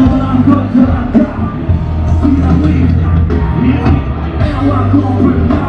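Live rock band playing loudly through a concert PA, with a steady low bass and regular drum hits.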